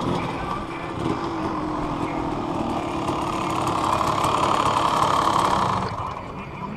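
Motocross dirt bike engines running at idle. One engine grows louder from about three seconds in and falls back just before the end.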